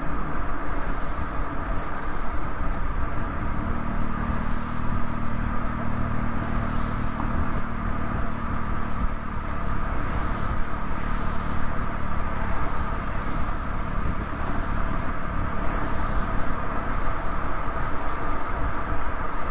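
Toyota Yaris driving along a road, heard from a microphone mounted outside on the rear hatch: a steady rush of tyre and road noise with low rumble. Short hissing sweeps that fall in pitch recur about once a second, and a low engine-like hum rises in the first half.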